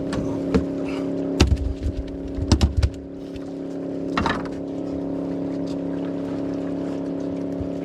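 Boat motor running steadily, with loud thumps in the first three seconds as a netted salmon flops out of the net onto the boat.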